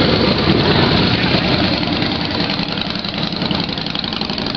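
Motorcycle engines, big V-twins, idling together in a steady drone that eases off slightly toward the end.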